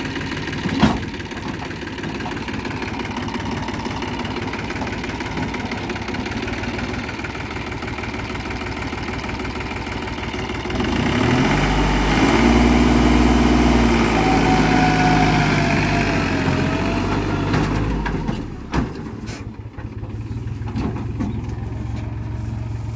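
New Holland 4710 tractor's diesel engine running, then revving up and working harder about halfway through as it pulls the overloaded trolley, before easing back to a lower, steady run near the end. Two sharp knocks stand out, one near the start and one late on.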